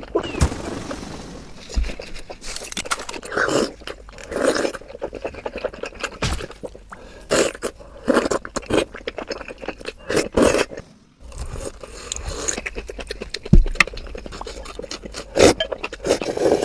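A person eating close to the microphone, mukbang-style: irregular slurps, bites and chewing of luosifen snail rice noodles and a fried chicken leg, with some crunch and clicks.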